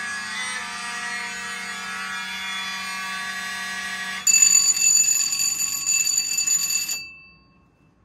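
Simplex and Wheelock mechanical fire alarm horns sounding continuously with a harsh, dense buzz. About four seconds in the sound changes suddenly and gets louder, with a few high ringing tones on top. At about seven seconds everything stops, the ringing dying away briefly.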